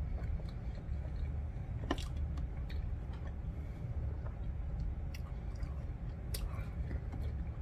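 A person chewing a mouthful of food up close, with a few sharp clicks of a metal fork against the plate, over a low steady hum.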